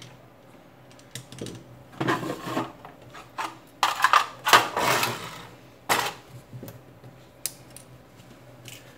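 Handling noises: a run of clicks, taps and scraping as tools and phone parts are handled on a silicone repair mat, busiest in the middle, then a few light clicks near the end as a plastic pry tool works at the smartphone's frame.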